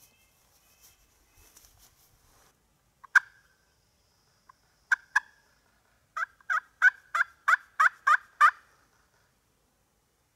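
Turkey yelping: a single sharp note, then a quick pair, then a run of about eight evenly spaced yelps, each dropping in pitch.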